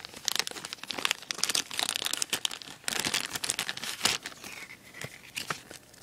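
Clear plastic wrapper crinkling in the hands as it is opened and the paper booklet inside is pulled out: a dense, irregular crackle.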